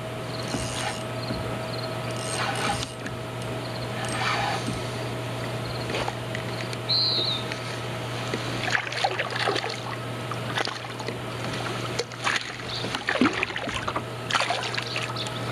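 Water splashing and trickling around a kayak as a small smallmouth bass is reeled in and lifted from the water, with a run of small irregular clicks and knocks of tackle and handling in the second half.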